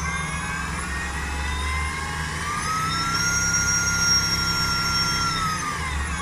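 Electric brushless motor driven by a VESC speed controller, whining as it spins. The pitch climbs over the first few seconds, holds steady, then falls near the end as the throttle eases off, over a low steady hum.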